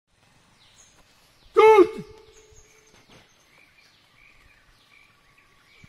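An Asian elephant tusker gives one short, loud trumpet about one and a half seconds in, its pitch arching up and then falling away. Birds chirp faintly around it.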